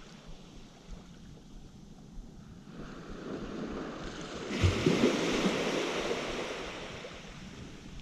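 A wave breaking on the beach: the surf builds from about three seconds in, crashes sharply near the five-second mark, then washes up and fades away.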